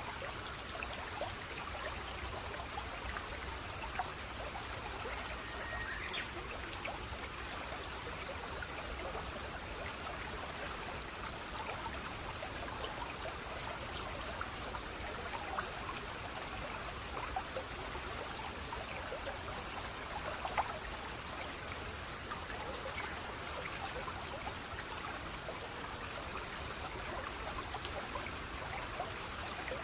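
Water flowing and trickling steadily, like a small stream, with many small splashes and drips.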